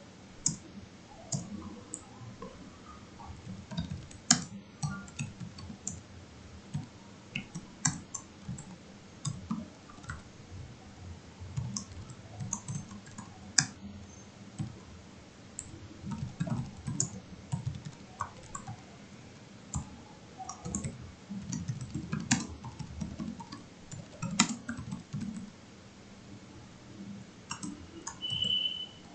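Typing on a computer keyboard in irregular bursts of key clicks, with several louder, sharper key strikes. A brief high beep near the end.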